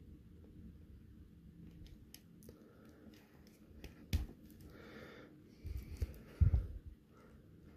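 Hands working a plastic action figure's tight crossed-arms piece: small plastic clicks and creaks, with a knock about four seconds in and a few soft thumps near the end.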